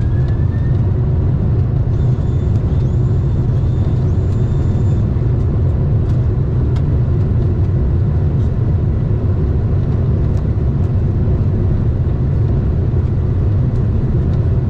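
Steady, heavy low rumble inside a Boeing 747-400 freighter's cockpit through touchdown and the landing roll: airflow and engine noise together with the wheels running on the runway. A few faint high tones sound briefly about two seconds in.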